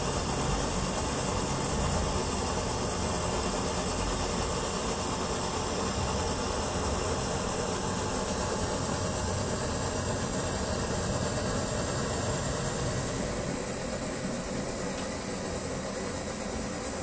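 Brass kerosene pressure stove burning, its burner giving a steady rushing noise from a low rumble up to a hiss, easing slightly near the end.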